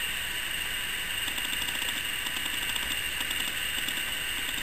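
Steady hiss of room tone and recording noise, with a faint high whine and a faint, even, rapid ticking underneath.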